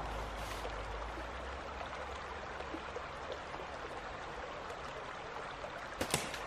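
Small woodland creek running over rocks, a steady rush of water. Near the end, two sharp clicks.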